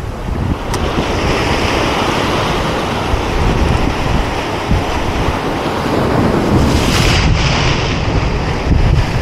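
Sea swell surging and foaming over the shoreline rocks just below, with wind buffeting the microphone. The surf swells louder about seven seconds in.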